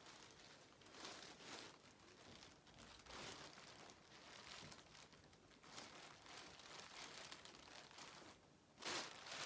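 Dark plastic bin bag crinkling in short, irregular bursts as it is handled and moved about as a puppet, loudest near the end.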